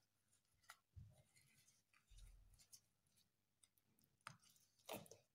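Near silence with a few faint clicks and soft low knocks, likely from hands handling the mould.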